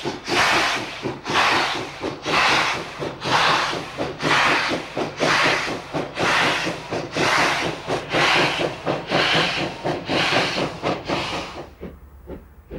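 Steam locomotive working a freight train, its exhaust chuffing in strong, even beats about once a second, over a low rattle of running gear and wagons. The beats fade near the end.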